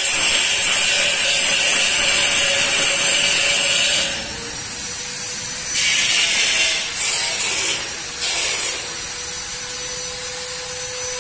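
Oxy-acetylene welding torch hissing as it welds thin steel pipe with a filler rod. The loud hiss holds steady for about four seconds, drops away, then comes back in three short spells, over a faint steady hum.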